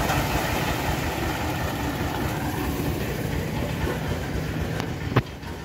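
Engine of a homemade bandsaw sawmill running steadily, getting quieter near the end. A single sharp click comes about five seconds in.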